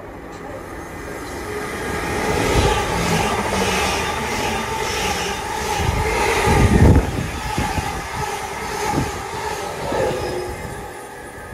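Greater Anglia Class 745 Stadler FLIRT electric multiple unit passing the platform. Its rumble builds over a few seconds and is loudest about halfway through, with wheels clattering over rail joints. It fades near the end.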